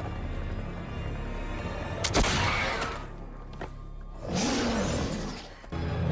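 Movie soundtrack: a low, tense music score, cut by a sudden crash about two seconds in, a smaller hit a moment later, and a loud burst of noise near the end.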